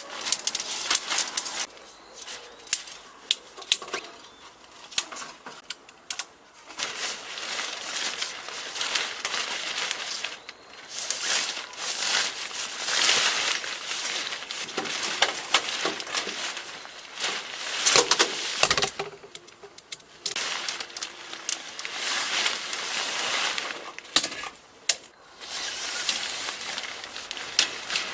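Rustling handling noises with frequent sharp clicks and knocks, in irregular bursts, as of gear and materials being moved about by hand.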